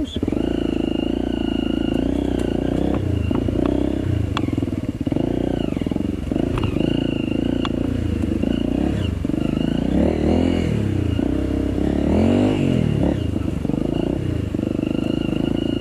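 Off-road trail motorcycle engine running under way, its revs rising and falling as the rider works the throttle over rough ground, with a few sharp clattering knocks.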